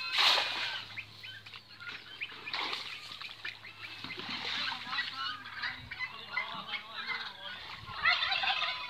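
A thrown cast net slaps down onto the pond water just after the start, a brief loud splash. Birds call throughout.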